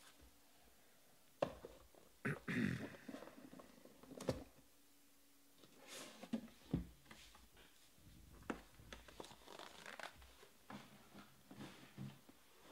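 Quiet, intermittent crinkling of plastic shrink wrap and rustling of a cardboard trading-card box being handled, with a few sharp taps as the inner box is slid out of its sleeve.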